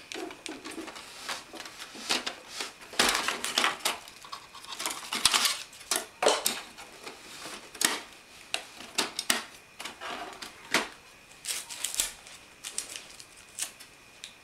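Irregular clicks, clacks and knocks of the HP Deskjet 3510 all-in-one printer's hard plastic body, lid and trays being handled and moved while its packing tape is taken off.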